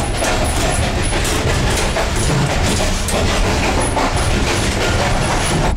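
Passenger train running at speed, heard in the vestibule by the carriage door: a loud, steady rumble and rush with faint clatter from the wheels on the rails.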